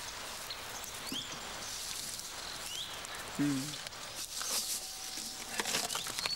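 Evening outdoor ambience while an elephant eats a food bundle: soft scattered rustling and crunching, short high chirps every second or two, and a brief low hum-like sound about three and a half seconds in.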